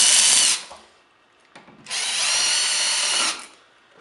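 Cordless drill with a Phillips bit backing out the two screws that hold a wall switch in its box. One run of the motor stops about half a second in, and a second run of about a second and a half winds down near the end.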